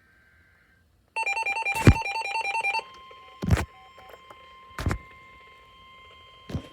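A rapidly warbling electronic alert beep for about a second and a half, then the steady 1050 Hz NOAA Weather Radio warning alarm tone that precedes a warning broadcast. Several sharp thumps sound over it, the loudest about two seconds in.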